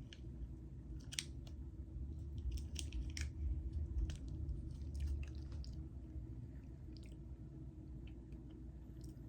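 A person chewing a soda-flavoured gummy candy, with small wet mouth clicks that are busiest in the first half.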